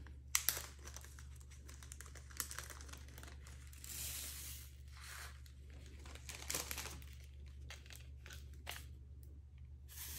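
Small plastic bag of resin diamond-painting drills crinkling as it is opened and handled, with the drills poured and rattling into a plastic drill tray, in scattered clicks and short rustles.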